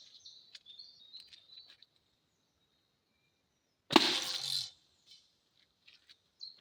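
An arrow from a bow drawn at about 70 pounds striking a motorcycle helmet's dual visor about four seconds in: one sharp, loud crack with a short clatter after it as the arrow is kicked back out without getting through. Birds chirp in the first two seconds.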